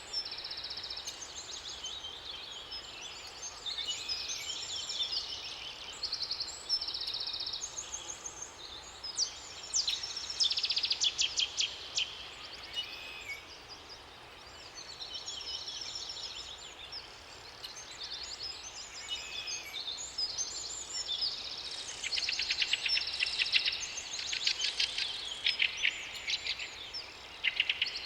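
A chorus of several songbirds singing at once, overlapping chirps, whistled phrases and rapid trills, over a faint, even background noise. The trilling swells twice, about a third of the way in and again near the end.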